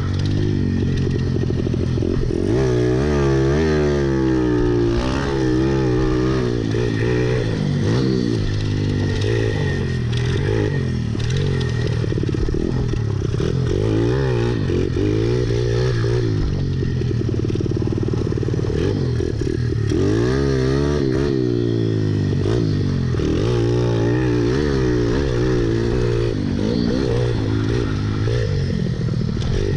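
Dirt bike engine being ridden, revving up and falling back over and over, its pitch rising and dropping every second or two.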